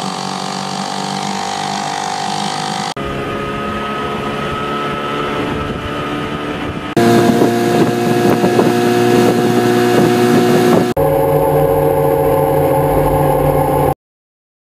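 Outboard boat motors running under way, heard as a series of different engines cut together, the sound changing abruptly about every four seconds. It cuts off suddenly near the end.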